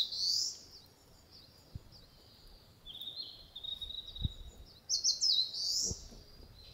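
Wild songbird singing: a quick, high, sweeping phrase at the start, a lower rapid trill about three seconds in, and the sweeping phrase again about five seconds in.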